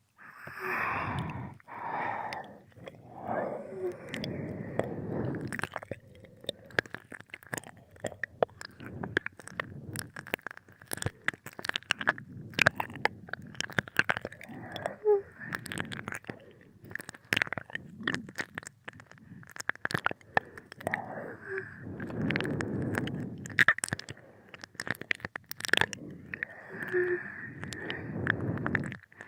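Close-up binaural ear-licking mouth sounds: many quick wet clicks and smacks, with a few longer stretches of soft breathing between them.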